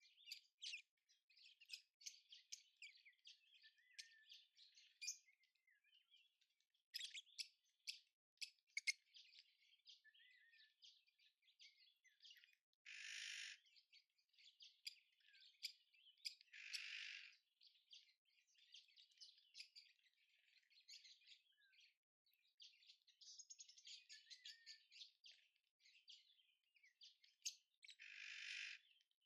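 Faint chorus of small wild birds chirping and twittering continuously, with three harsher, rasping sounds of about a second each, two near the middle and one near the end.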